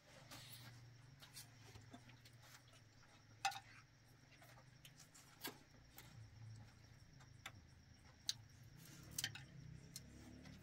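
Near silence: a few faint, scattered clicks and knocks, the clearest about three and a half seconds in, over a low steady hum.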